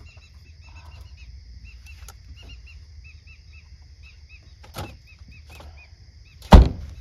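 A car's boot lid slammed shut once near the end, the loudest sound, with a lighter knock about two seconds before it. Behind them a steady chorus of night insects keeps up, with short high chirps repeated every fraction of a second.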